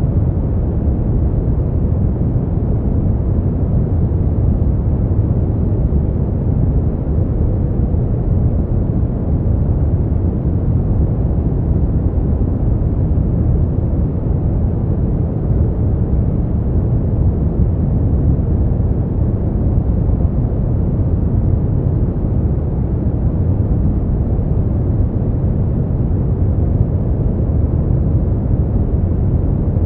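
Steady, deep rushing noise played as a sleep and relaxation sound. It is unchanging throughout, with most of its weight in the bass and little hiss at the top, so it sounds darker and more rumbling than true white noise.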